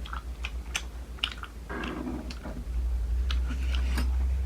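Close-miked eating sounds: irregular wet clicks and smacks of chewing momo, over a steady low hum that grows louder about three seconds in.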